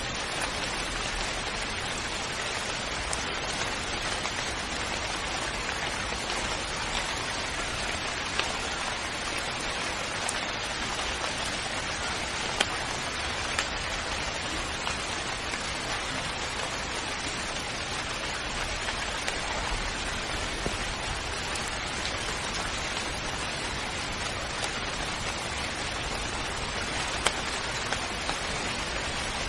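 Steady rainfall, an even hiss of rain with now and then a single louder drop tick standing out.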